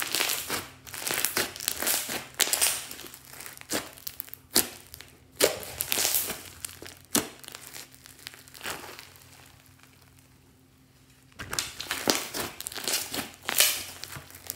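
Hands kneading, pressing and stretching a thick, bead-studded yellow slime, giving an irregular run of sticky crackles and pops as air pockets in the slime burst. The sound goes quiet for a few seconds about two-thirds of the way through, then comes back as a dense patch of crackling.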